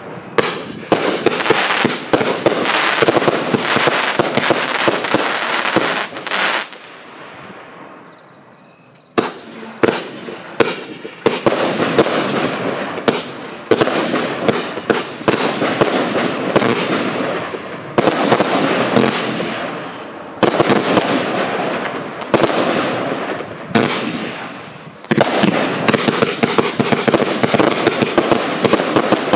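High Kick consumer fireworks cake (multi-shot battery) firing a rapid string of shots and bursts, with a short lull about seven seconds in before the shots pick up again about nine seconds in.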